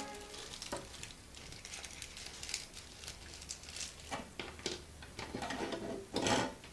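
Light scattered clicks and soft rustles of small objects being handled, with a louder rustle about six seconds in.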